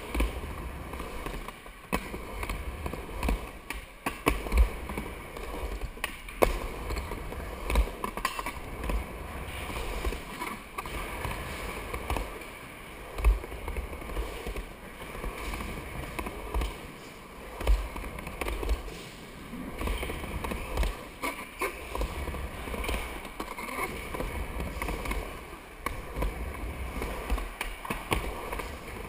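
Skateboard wheels rolling over wooden skatepark ramps, a steady rumble broken again and again by short knocks and clacks of the board and trucks.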